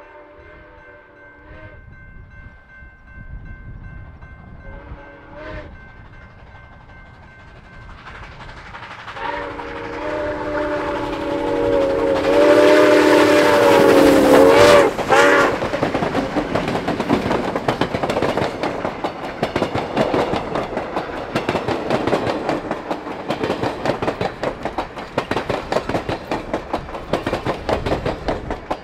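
Steam locomotive 2-8-2 Mikado #4960 blowing its whistle, several notes sounding at once: a blast that ends about a second in, a short one, then a long blast and a quick toot as the locomotive passes close by, the loudest moment. Then the passenger cars roll past with a steady clickety-clack of wheels over the rail joints.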